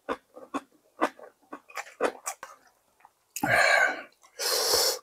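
Close-miked chewing of sujebi, a run of short wet clicks and lip smacks. Then come two loud breathy rushes of air, about a second apart, in the second half.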